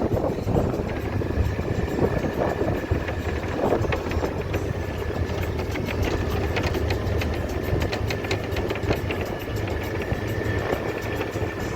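A vehicle in motion: a steady low rumble with a thin steady whine and a constant patter of small rattles and clicks.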